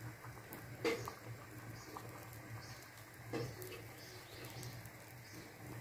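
Faint soft ticking and popping as baghrir batter bubbles and sets in a hot nonstick pan, over a low steady hum, with two short louder sounds about a second in and again past three seconds.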